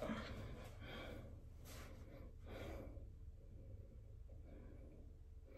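A few faint, sighing breaths in the first three seconds, then near quiet.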